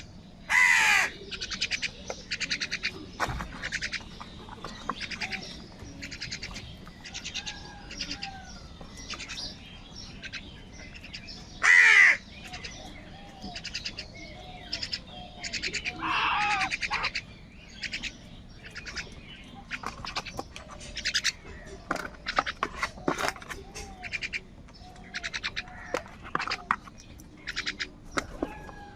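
A flock of crows cawing, with many short caws overlapping throughout. Three louder, longer harsh calls stand out: about a second in, at about twelve seconds, and around sixteen seconds.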